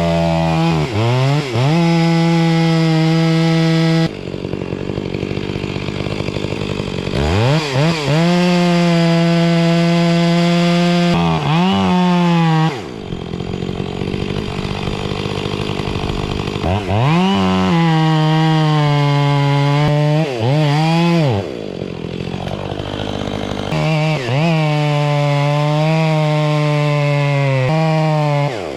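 Two-stroke chainsaw felling a dead fir. It runs at full throttle for several seconds at a time, with quick revs down and back up, and it breaks off abruptly into quieter stretches about four, thirteen and twenty-one seconds in.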